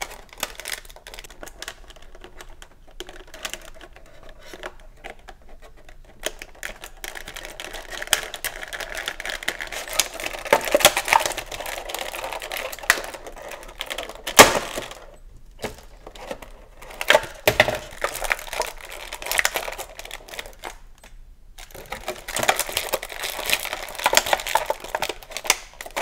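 Clear plastic blister packaging and a plastic bag crinkling and clicking as an action figure is worked loose by hand. The sound comes in uneven spells, with one sharp snap about halfway through.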